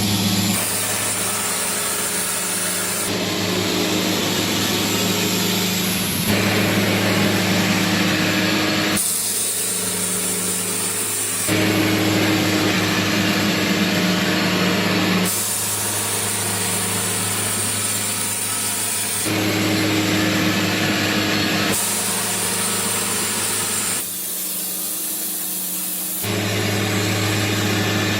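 Portable sawmill running and cutting a log: a steady engine hum under a hissing saw noise. The sound jumps every few seconds as the edit cuts between short clips of the milling.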